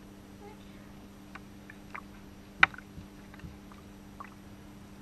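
Small splashes and drips of bathwater in a tub as hands wash a wet Pomeranian puppy standing in it, a few scattered sharp splashes, the loudest about two and a half seconds in. A steady low hum runs underneath.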